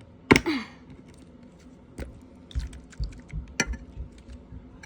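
A loud sharp click about a third of a second in, then scattered clicks, taps and soft thuds as a contact lens solution bottle is handled and squeezed over a bowl of melted glue-stick slime mixture.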